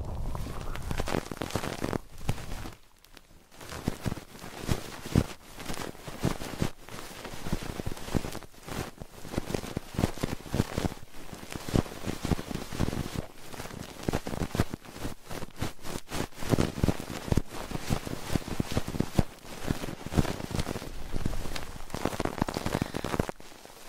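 Close-up crackling and scratching: a dense, irregular run of small clicks and rustles, the kind of ASMR trigger played right against the microphone. It stops briefly about three seconds in and again near the end.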